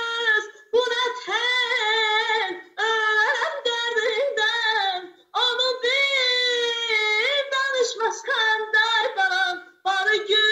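A woman singing solo and unaccompanied over a video call, in long held melodic phrases broken by short pauses for breath, four times.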